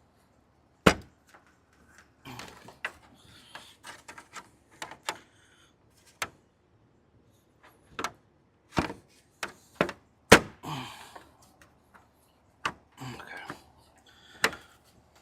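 Irregular sharp knocks and clicks, with scraping and rustling between them: hands seating a Jeep grille's push-pin fasteners into their holes. The loudest knocks come about a second in, near the middle and near the end.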